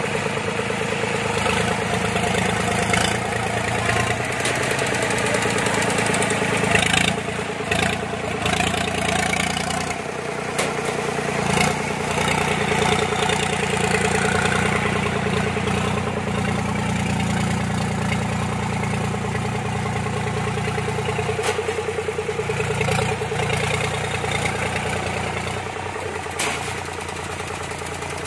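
Engine of a tracked rice-hauling machine running steadily as it drives loaded with sacks of paddy, with a few brief knocks partway through.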